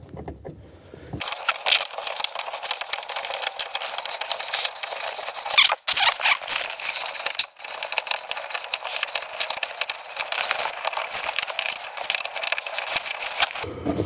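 Clothing rubbing and scraping against the phone's microphone as it is handled: a dense crackling rustle, thin with no bass, broken by two brief dropouts around six and seven and a half seconds in.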